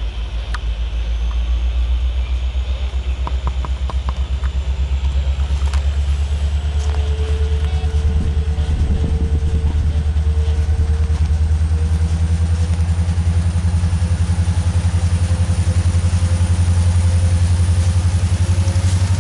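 Freight train of open-top hopper cars rolling past at close range: a steady heavy rumble with a fast, even clatter of wheels on the rails. A thin whine rises slowly in pitch from about a third of the way in.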